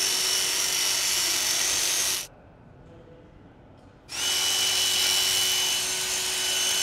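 DEWALT 54V XR FlexVolt split boom power head with its hedge trimmer attachment, brushless motor running the blades at a steady, even pitch. It stops about two seconds in, then starts again about four seconds in, briefly rising in pitch as it spins up.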